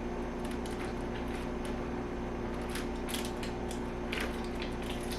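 Scattered light clicks and taps from handling the plastic parts of a portable clothes dryer, over a steady low electrical hum.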